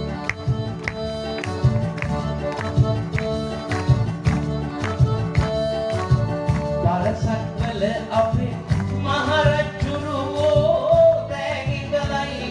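Live band music with a steady drum beat playing a Sinhala song's instrumental opening. A man's singing voice comes in a little past halfway.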